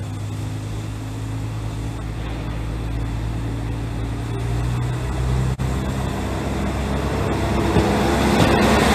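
Diesel railcar's engine running as the car moves slowly past at close range, its drone growing steadily louder. The engine note shifts about halfway through, and wheel-on-rail noise builds toward the end.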